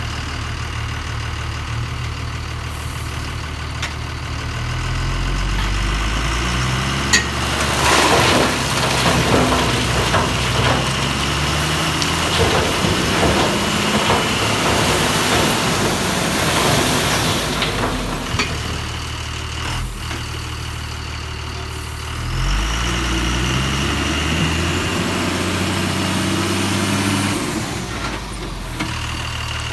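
Tata 1618 4x4 tipper truck's diesel engine working under load as the loaded truck pulls through deep mud. It idles, then the revs climb a few seconds in and stay high, with heavy rough noise from the tyres churning mud and a sharp knock about seven seconds in. The revs drop back, then climb again.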